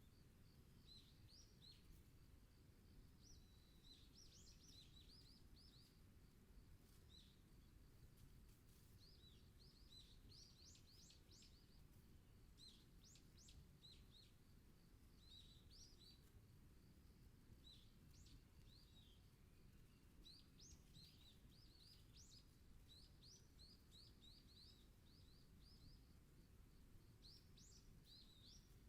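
Songbirds singing faintly: many short, high chirps and quick trills in scattered runs, several birds calling, over a steady low rumble.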